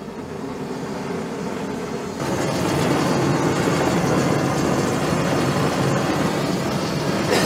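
Homemade black-iron-pipe venturi propane burner burning with a steady noisy blue flame, getting louder about two seconds in.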